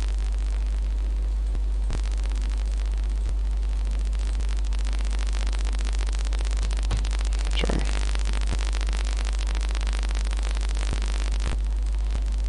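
Steady low electrical hum with a hiss over it, with a few faint clicks scattered through.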